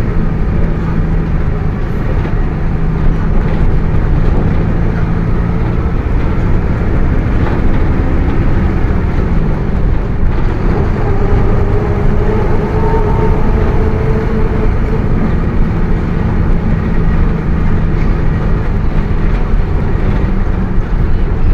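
Mercedes-Benz OF 1721 BlueTec 5 bus under way: the diesel engine runs steadily over road rumble, with the differential growling. A whining tone climbs slightly in pitch around the middle.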